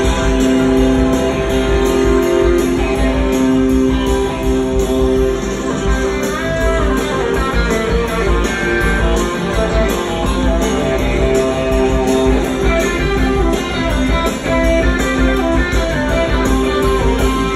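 Live rock recording with electric guitar and a full band, played back through Fried transmission-line loudspeakers.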